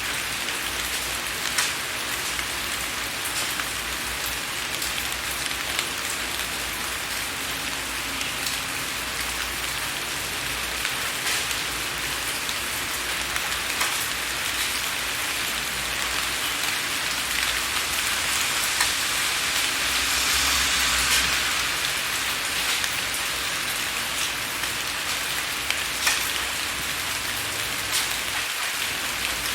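Steady rain with individual raindrops tapping on a window pane, a constant hiss with scattered distinct drop ticks, swelling slightly in intensity about two-thirds of the way through.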